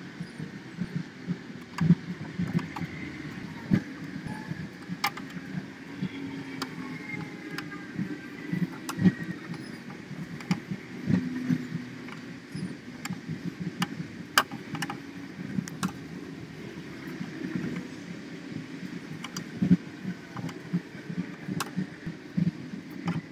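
Irregular clicks, taps and knocks of handling and working on hard objects, over a steady low hum.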